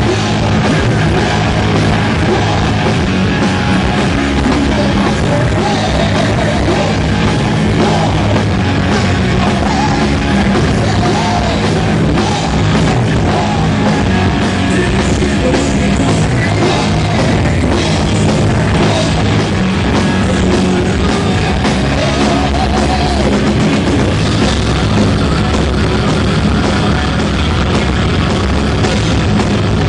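Heavy metal band playing live at full volume: electric guitars, bass and drum kit, with a singer belting into the microphone.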